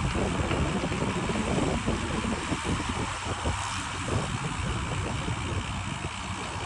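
Wind buffeting the microphone and road noise while riding a bicycle through city traffic: an uneven, rumbling rush with no distinct events.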